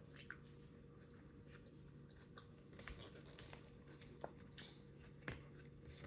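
Faint chewing of a salad of lettuce, cucumber and crispy fried onions, with scattered soft clicks and crunches as a fork picks through the salad in a takeout bowl; the sharpest click comes just past the fifth second.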